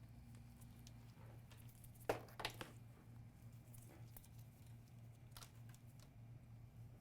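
Faint clicks and taps of multimeter probe tips on a laptop motherboard's capacitors: a cluster of three about two seconds in and one more past five seconds, over a low steady hum.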